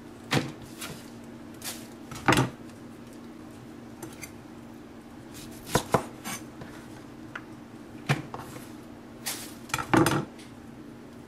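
Chef's knife chopping through bunches of green beans onto a wooden cutting board, trimming off the stem ends: five sharp knocks a couple of seconds apart, with lighter taps in between.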